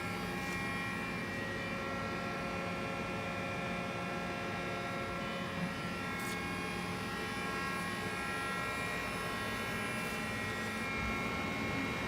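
Steady machine hum of a powered-up Mori Seiki NL1500Y CNC lathe standing idle, with several steady tones held at even pitch and a faint tick or two along the way.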